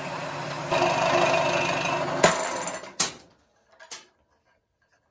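Scroll saw running and cutting a small wooden block, louder once the blade is in the wood. About two seconds in the blade snaps with a sharp crack, another click follows, and the saw runs down and goes quiet.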